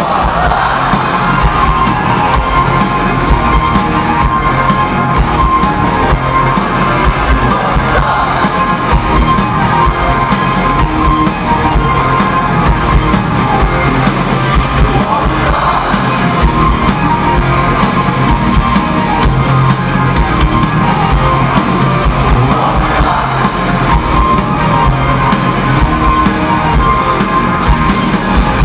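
Loud live rock music from a band playing through a concert PA: electric guitar, drums and singing, with the crowd shouting along.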